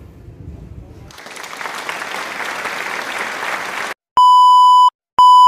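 A burst of loud hissing noise, like TV static, about a second in, cutting off sharply after about three seconds, followed by a test-pattern tone: a steady 1 kHz beep, sounding twice.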